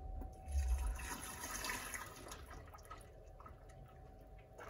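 Liquid plaster (gypsum slurry) pouring from a plastic bucket into the filling hole of a silicone mould, a splashing pour that is strongest in the first half and then tapers to a trickle. A faint steady hum runs underneath.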